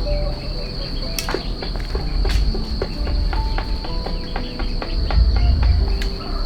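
Insects droning in one steady high note, over a loud low rumble that swells about five seconds in. Scattered short chirps and a few sharp clicks come through.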